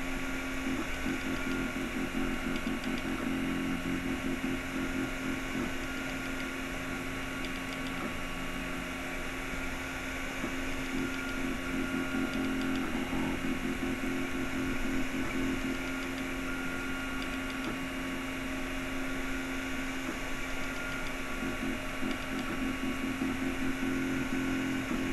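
Anet A8 3D printer printing: its stepper motors whine in pulsing runs that come and go as the print head traces the part, over the steady hum of its cooling fan.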